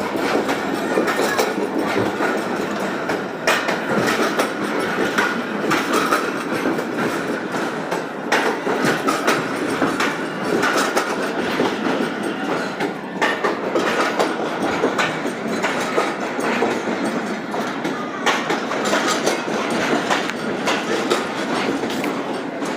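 Moving train running along the track, a steady rumble with the wheels clattering over the rails in frequent sharp knocks.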